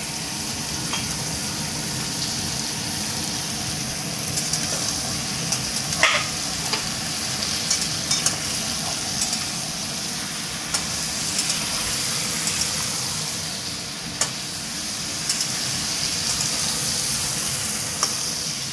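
Chunks of raw jackfruit and potato sizzling in hot oil in a metal pan, stirred with a metal spatula that scrapes and clinks against the pan now and then. The loudest clink comes about six seconds in.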